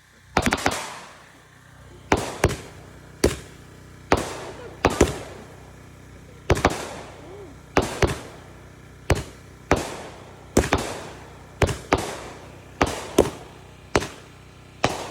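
Fireworks exploding in a quick string of sharp bangs, one or two a second, each trailing off in a fading rumble.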